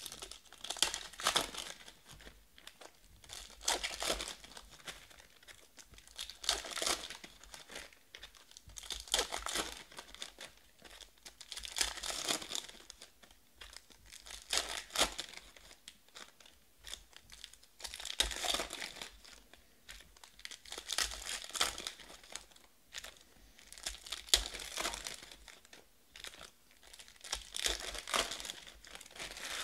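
Panini Status basketball card packs being torn open and handled: crinkling of pack wrappers with the rustle and flick of cards being flipped through and stacked, in bursts every two or three seconds.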